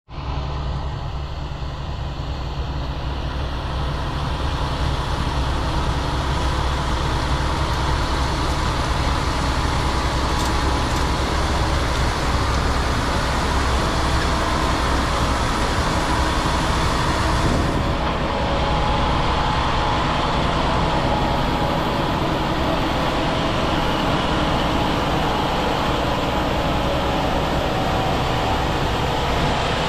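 Fendt tractor engine running steadily while it works the field, drawing a soil cultivator and seed drill. The engine hum and the rushing noise of the implement stay even throughout.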